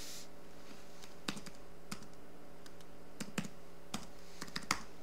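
Typing on a computer keyboard: a dozen or so short, irregular key clicks as an IP address is typed, over a faint steady hum.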